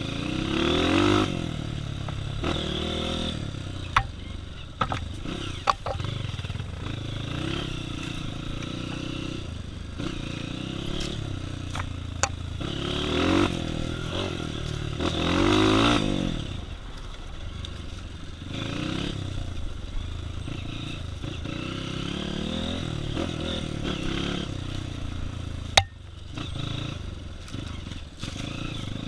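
A Honda CRF dirt bike's single-cylinder four-stroke engine on a trail ride, its revs rising and falling again and again as the rider works the throttle, with the strongest surges about a second in and in the middle. Sharp clicks and rattles come through at intervals, one loud crack near the end.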